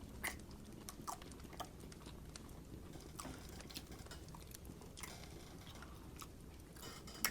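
Faint, scattered clicks and soft mouth sounds of someone chewing rotisserie chicken, a few separate ticks spread irregularly across the moment.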